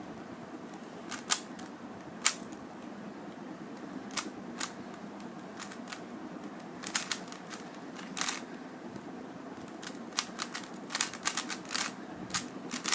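Plastic Rubik's cube being turned by hand: irregular clicks and clacks of the layers, sometimes several in quick succession, over a steady low hum.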